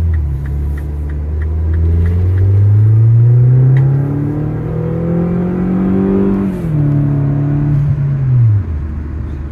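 Turbocharged Mini engine revved slowly up from idle over about six seconds, eased back a little and held, then dropping to idle near the end. The turbo is audible, with the intake side open and letting in unmetered air, while the engine pulls without an obvious misfire.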